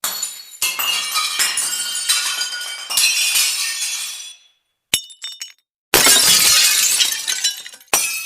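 Glass smashing again and again, each crash followed by ringing shards tinkling as they settle. The first smash runs about four seconds, a short one comes near five seconds in, another big crash about six seconds in, and a fresh one just before the end.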